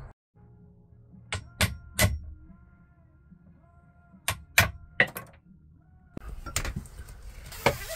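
Claw hammer striking a wood chisel driven into a wooden batten: sharp knocks in small groups, three, then four, then two more near the end.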